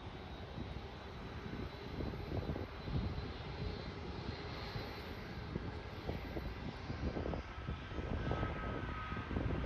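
Jet airliner's engines heard as it flies low on final approach and descends toward the runway: a steady jet noise.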